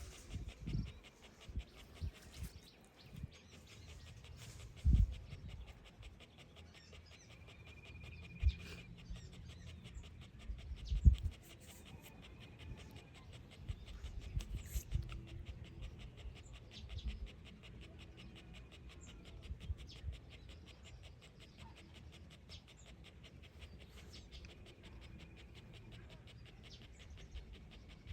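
Dog panting steadily with its tongue out, with a few low thumps, the loudest about eleven seconds in.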